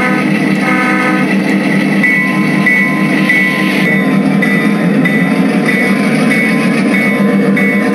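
Diesel locomotive sounds for a model Burlington Northern F-unit: a short horn blast about a second in, then a bell ringing steadily, about one stroke every half second, over a low engine rumble.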